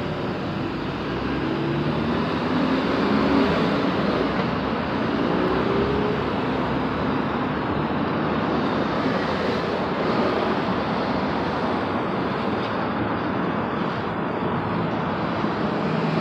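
Steady city street traffic, with a car's engine accelerating away and rising in pitch several times over the first few seconds as it works through the gears.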